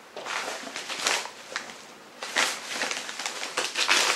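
Rustling and crinkling of packaging being handled: irregular crackly rustles with small clicks, sparse at first and busier from about halfway through.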